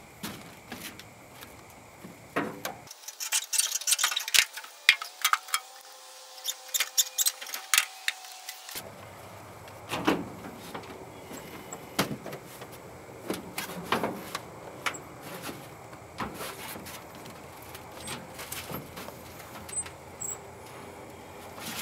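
Scattered knocks, clicks and rattles from a scooter being handled in a pickup truck's bed, with a dense run of sharp clicks in the first half.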